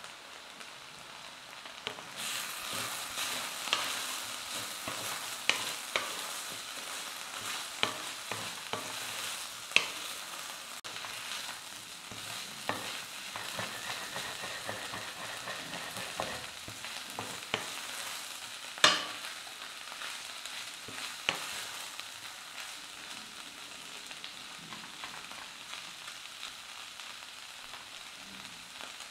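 Eggplant pieces sizzling in oil in a stainless steel pan as a wooden spatula stirs them, with scraping and sharp knocks of the spatula against the pan. The sizzle swells about two seconds in, and the loudest knock comes about two-thirds of the way through.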